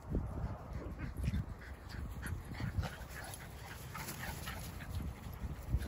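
Dogs barking and yipping in short, scattered calls as they run about, over a low rumble.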